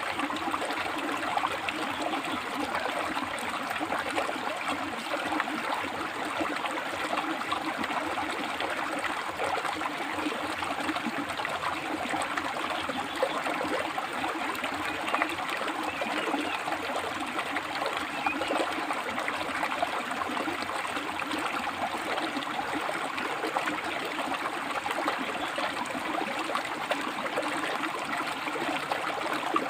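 River water flowing and splashing over and between rocks: a steady, even rush with fine gurgles.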